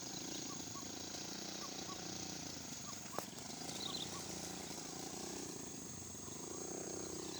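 A small engine running steadily, its hum rising and falling slightly, under a constant high-pitched insect drone, with a single sharp click about three seconds in.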